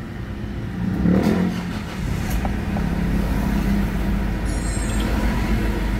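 Ford Everest engine being started: it catches about a second in and settles into a steady idle at about 1,000 rpm. The engine has just been topped up with oil, which had been running low.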